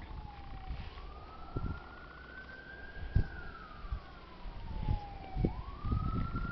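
A siren wailing, its single pitch gliding slowly down and up again twice, with a few short dull thumps over it.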